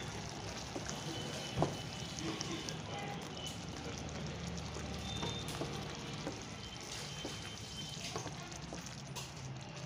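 Wooden spatula stirring a thick chicken curry in a pan, the gravy sizzling softly as it simmers on low heat, with scattered light knocks of the spatula against the pan, the clearest about one and a half seconds in.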